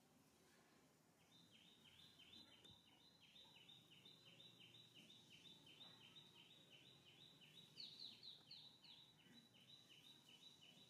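Faint, fast chirping of a small bird, short high notes repeated about three times a second, starting about a second in. A few louder notes near eight seconds slide down in pitch.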